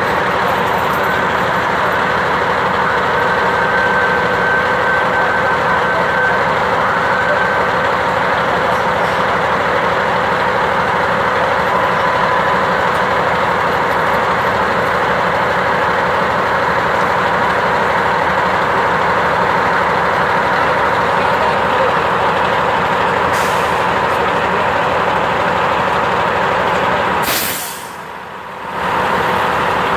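Fire truck engine running steadily with a constant hum. It dips for about a second near the end.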